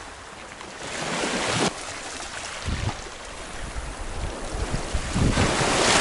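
Sea waves washing in, surging about a second in and again, louder, near the end, with wind buffeting the microphone.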